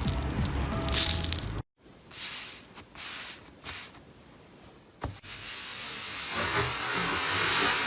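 Slime being squeezed and pressed by hand: a few short squishy hisses, a sharp click, then a longer squish that swells over the last few seconds. Background music plays in the first second or so.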